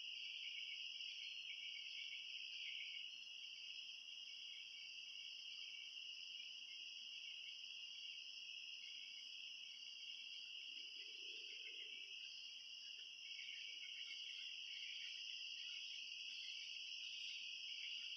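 Faint, steady chorus of crickets and other night insects: a continuous high trill at two pitches.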